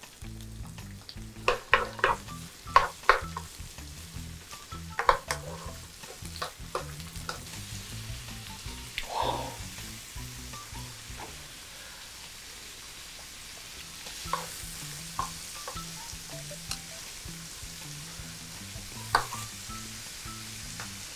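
Sliced sausages and bell peppers sizzling in an oiled nonstick frying pan while a wooden spoon stirs them. Sharp knocks against the pan come several times in the first seconds, again around five to seven seconds in, and once near the end.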